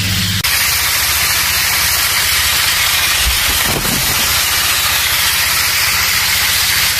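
Water from a hose pouring onto the soil of watermelon planting holes, a steady hiss, over the low steady running of a small engine. About half a second in, a strong low hum gives way to the hiss.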